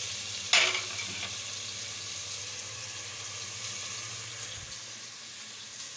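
Chicken pieces frying in oil in an aluminium pot, a steady sizzle that fades slightly toward the end, with a single sharp knock about half a second in.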